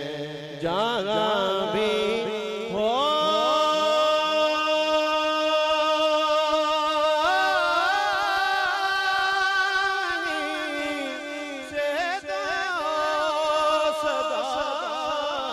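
A man's solo voice chanting Islamic devotional verse into a microphone, in long held notes with wavering, ornamented turns and a short break for breath about twelve seconds in.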